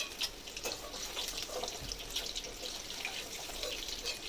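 Hot oil sizzling and crackling in a karahi around hard-boiled eggs as they finish frying, with a few light clicks as a metal spoon lifts them out.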